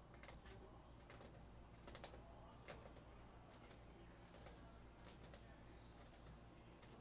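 Faint computer keyboard typing: scattered, irregular light key clicks over a low steady hum.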